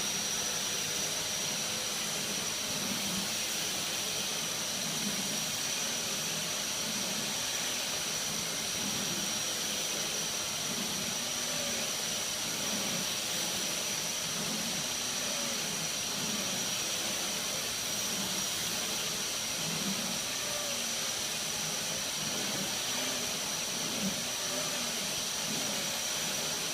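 Dyson DC54 cylinder vacuum cleaner running at full power with a steady high-pitched whine and rushing air, as it vacuums carpet with its turbine head.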